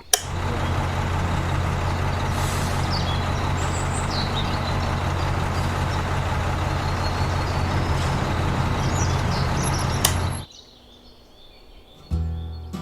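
A vehicle engine running steadily under a broad rushing noise, cutting off suddenly about ten and a half seconds in. After a short lull, a different sound starts near the end.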